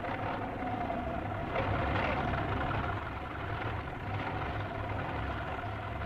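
Crawler bulldozer's engine running steadily with a low throb as the machine pushes sand, a little louder from about a second and a half in.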